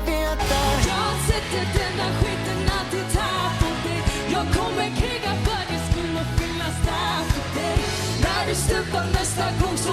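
Pop song with a singer over a steady drum beat; the drums come in about a second in.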